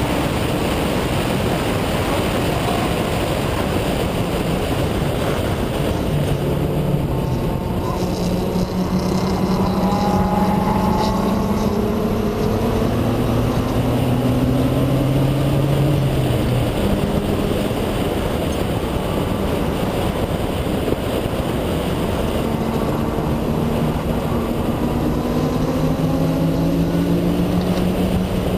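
Mazda RX-7 FD's twin-turbo 13B rotary engine at speed on track, rising slowly in pitch through the revs, with one upshift about two-thirds of the way through, under heavy wind and road noise.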